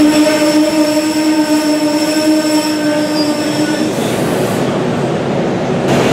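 SEPTA Regional Rail train pulling into the station, with steady rail and car noise. A steady pitched tone sounds over it and stops suddenly about four seconds in.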